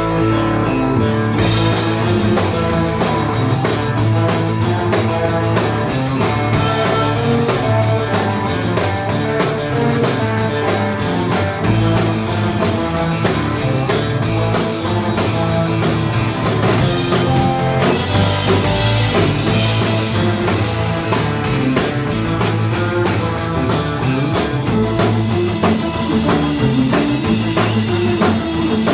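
Live instrumental surf rock: electric guitar, bass and drum kit playing at a steady beat.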